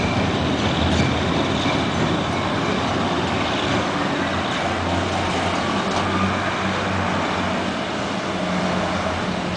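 Heavy road and rail traffic: the rumble of a departing train giving way to the engines of a bus and a truck driving past, a steady loud din.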